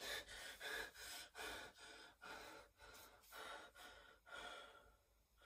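A man's quick, shallow breaths, about two a second, acted as panic by a character convinced something is wrong with his heart; the breathing fades out near the end.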